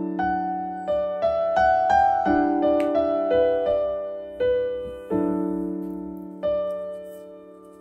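Background solo piano music: a slow, gentle melody over chords struck again every two to three seconds, each note fading away after it is played.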